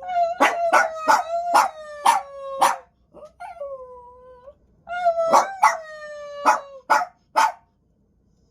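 A pet dog howling and whining on cue, the "I love you" sound it is being taught: two long, slightly falling howls, each broken by several sharp yips, with a shorter whine between them.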